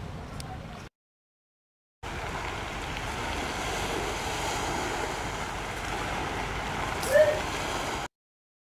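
Steady wash of sea and wind noise over open water, cut in abruptly about two seconds in and cut off abruptly near the end. A brief sound that rises and falls in pitch stands out as the loudest moment about seven seconds in.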